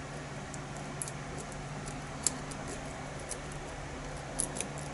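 Faint, scattered light clicks of a lock pick and tension wrench working the pins of a pin-tumbler challenge lock, a few close together near the end, over a steady low hum.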